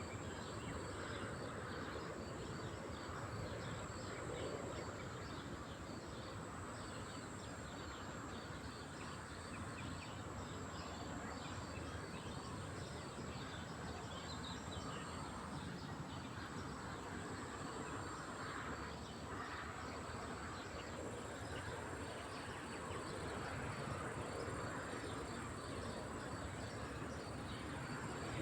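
Lakeside nature ambience: a continuous high-pitched insect trill, small birds chirping, and a steady low outdoor wash underneath.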